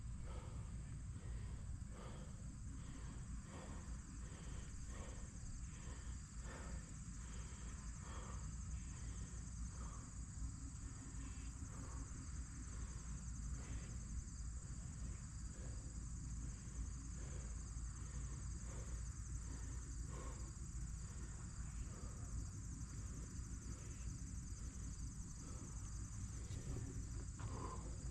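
Steady high-pitched insect chorus over a constant low rumble, with faint soft ticks about twice a second.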